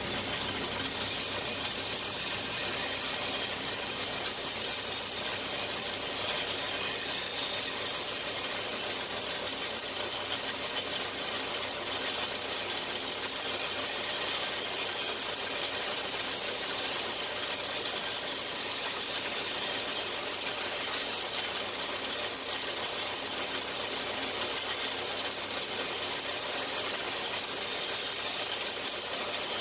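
A shop power tool running steadily with a continuous hiss.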